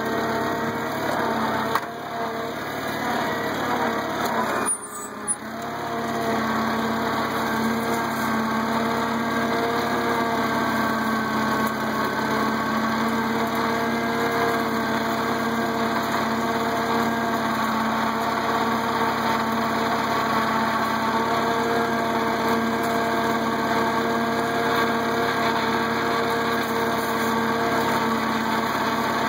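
International Cub tractor's four-cylinder flathead engine running steadily while pulling cultivators through the soil, with a brief dip about five seconds in.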